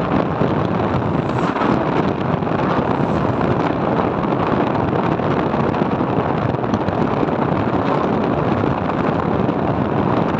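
Steady wind rush on the microphone mixed with a motorbike's engine and road noise, heard from the rider's seat while riding at an even speed.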